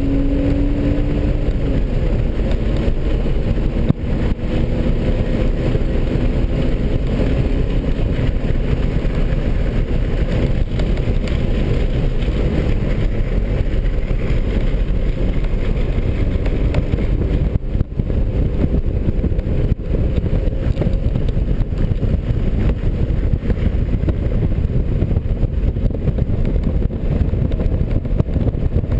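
Inside the cabin of a 2003 BMW 330i with the performance package at track speed: its inline-six engine pulls under load, its note rising over the first second or two. It is then mostly buried in a steady low rumble of road and wind noise.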